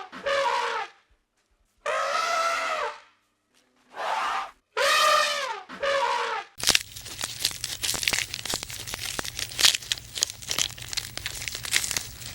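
An animal gives four drawn-out calls, each about a second long and rising then falling in pitch, with short silences between. About halfway through the sound cuts abruptly to a dense crackling and crunching over a low steady hum.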